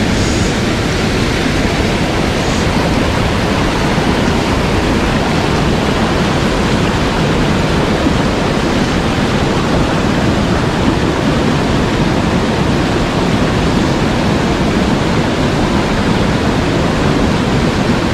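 Mountain stream rushing steadily, a loud, even wash of water running high.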